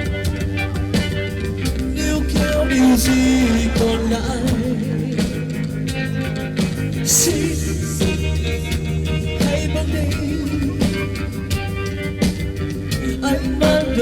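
A rock band playing a song live, an instrumental stretch between sung lines, over a steady bass, with a bright crash about seven seconds in.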